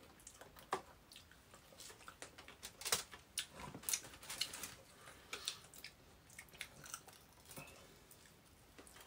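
Close eating sounds: soft chewing and mouth noises with scattered small clicks and crackles, a couple of sharper clicks about three and four seconds in.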